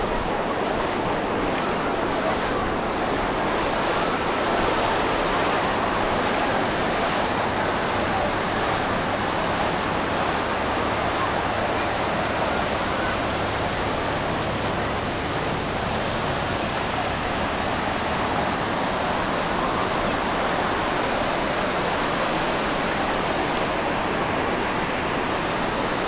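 Ocean surf washing onto a beach: a steady, unbroken rush of breaking waves.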